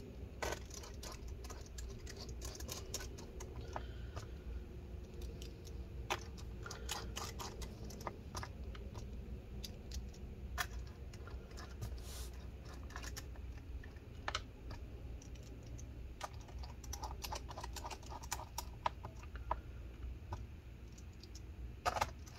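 Small, irregular clicks and ticks of a precision pentalobe screwdriver turning and seating tiny screws in a MacBook Pro's aluminium bottom cover, over a faint low hum.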